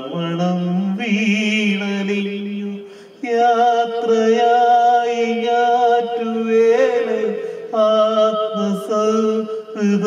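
A man singing unaccompanied into a handheld microphone: long held notes that bend and waver, sung in several phrases with short breaks between them.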